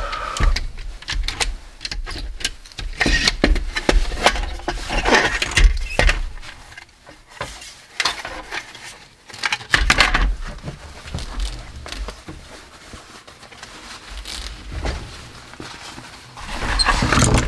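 Handling and prying apart a CD-ROM drive: irregular clicks, knocks and rattles of its plastic and sheet-metal parts, busier at first, quieter for a few seconds past the middle, then louder again near the end.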